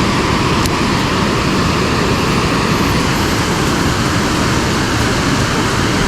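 Water pouring through a lake spillway, a loud, steady rushing noise without a break.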